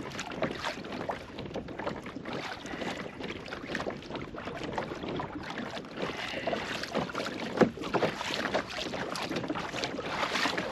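Small choppy waves lapping and slapping irregularly against a kayak hull, with wind buffeting the microphone.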